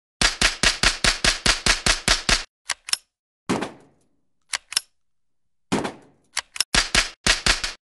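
Dubbed machine-gun fire sound effect: a rapid burst of about a dozen shots, then a few scattered single shots, then another rapid burst near the end.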